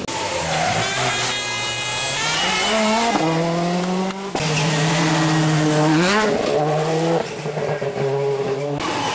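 Rally car engines revving hard as the cars accelerate along the stage, the pitch climbing and dropping sharply with each gear change. The sound cuts off abruptly twice and switches to another car.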